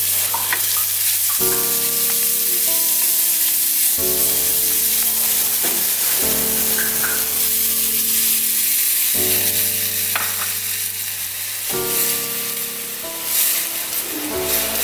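Blended lemongrass, galangal, garlic and ginger sizzling as it is stir-fried in oil in a wok, with water poured in partway through. Background music with sustained chords plays over it.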